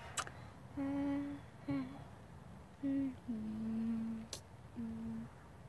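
A child humming a short tune with closed lips: a series of held, steady notes with brief pauses between them. Two faint clicks, one just after the start and one about four seconds in.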